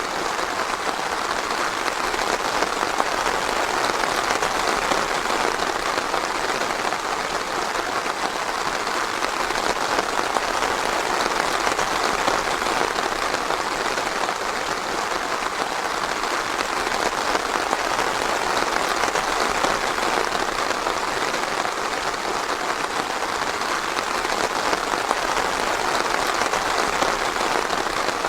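Steady rain falling, an even dense patter of drops with no thunder.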